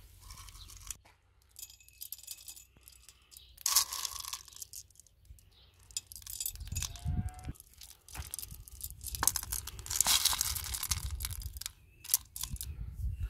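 Hard-shelled M&M candies clicking and rattling as fingers rummage in a plastic bowl and push them into a car's tailpipe: many small clicks, with two louder spells of scooping about four seconds in and again near ten seconds. A steady low rumble lies underneath.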